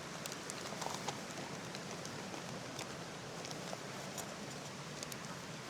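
Steady rushing of a nearby creek, with a few faint scattered clicks and taps over it.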